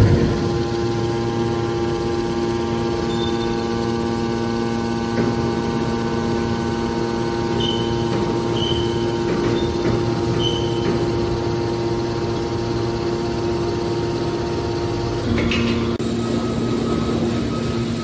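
Hydraulic power unit of a scrap metal baler running, a steady motor-and-pump hum with several steady tones. About fifteen seconds in there is a short knock and the hum changes tone, a lower note growing stronger.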